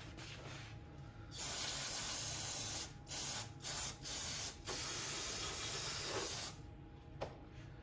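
Aerosol spray cleaner hissing in bursts: a long spray about a second and a half in, a few short squirts, then a longer one that stops a little past the middle. It is cleaning dust and grease off the governor linkage of a lawn mower engine.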